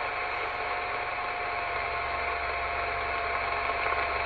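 CRT SS 9900 CB radio on upper sideband hissing with steady band noise between transmissions, with a thin steady whistle tone running through the static.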